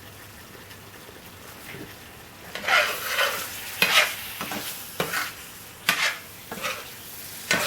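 Curry sauce of chicken and base gravy sizzling in a hot pan. From about two and a half seconds in, a spoon scrapes through it in repeated stirring strokes, roughly one or two a second.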